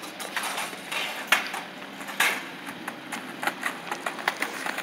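Kick scooter rolling and rattling over a concrete sidewalk, with irregular clicks and knocks and a few louder clatters in the first couple of seconds.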